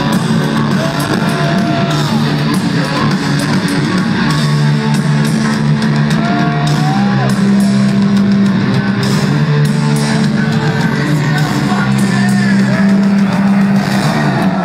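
Live heavy metal band playing loud: distorted electric guitar, bass and drums, with lead guitar notes sliding up and down in pitch.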